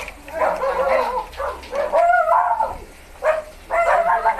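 Dogs whining and yipping in several short bouts, with brief pauses between them.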